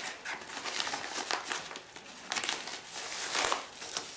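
A mailed package being opened by hand: irregular crinkling and rustling of the wrapping, in uneven bursts.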